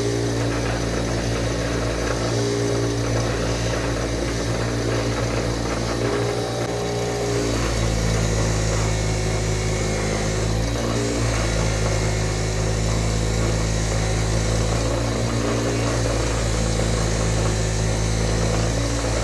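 Electric polishing wheel running steadily, its motor humming, with a shifting rubbing noise as small Glock trigger parts are held against the wheel to polish them.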